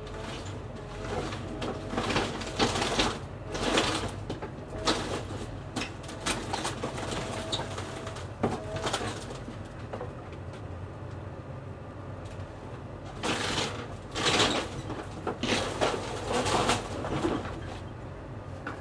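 A heavy machine runs with a steady low rumble while it tears down a house, with two bouts of loud crashing and cracking as the structure breaks apart and debris falls, and a few creaking squeals in between.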